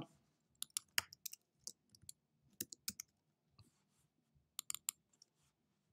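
Computer mouse clicks and keystrokes: about fifteen short, sharp clicks spread unevenly, including a quick run of four keys near the end, as a search word is typed.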